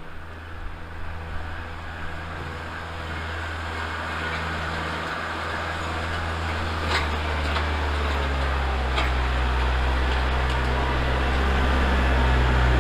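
Kubota L4701 tractor's four-cylinder diesel engine running at full throttle under load, pulling a gooseneck trailer through snow and growing steadily louder as it comes toward the microphone. There are a few short sharp clicks around seven and nine seconds in.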